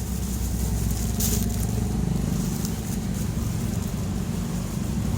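Steady low engine-like hum with a faint noisy hiss over it, and a brief louder hiss or rustle about a second in.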